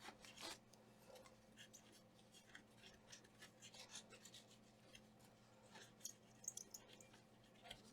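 Faint, irregular scratching and light ticks: the freshly soldered joints of a laptop DC charging jack being scrubbed clean.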